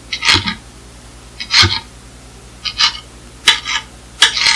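Kitchen knife slicing grilled chicken breast into strips on a plastic cutting board: five separate strokes, each a sharp knock of the blade on the board, a second or so apart.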